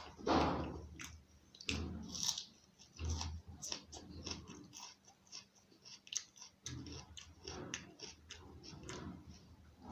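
A person chewing and smacking their lips while eating curry with roti, with many short, irregular mouth clicks and smacks and a louder smack just after the start.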